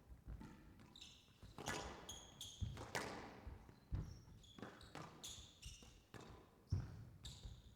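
Squash rally: the ball is struck by the rackets and hits the court walls with sharp smacks, about one a second. Players' shoes squeak briefly on the court floor between the shots.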